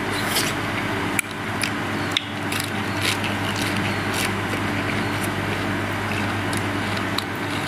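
A person chewing raw beef with the mouth open, giving scattered wet clicks and lip smacks over a steady background hum.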